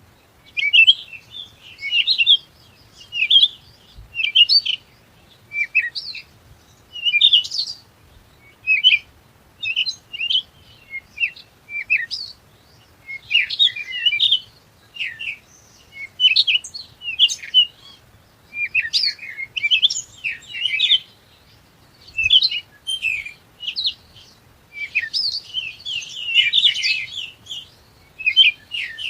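Small birds chirping in short, quick phrases, repeated about once a second, with busier overlapping chirps near the end.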